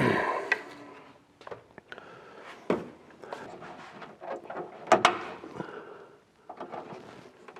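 Plastic trim and the loosened chrome trim strip on a car's trunk lid being handled and worked free: scattered clicks, knocks and scraping, the loudest a sharp double click about five seconds in.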